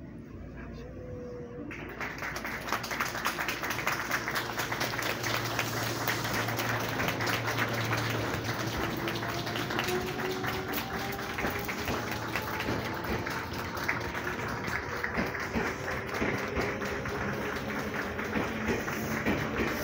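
Crowd clapping in a dense, steady patter from about two seconds in, with slow gliding tones underneath from a departing electric train's motors.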